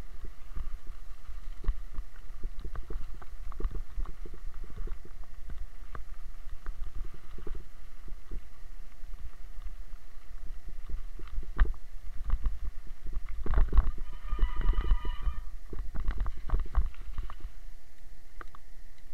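Mountain bike riding over a gravel track, heard through a camera microphone that shakes with the bike: a constant low rumble with many knocks and rattles from the bumps, heaviest about two thirds of the way through. A short high squeal comes in about fourteen seconds in.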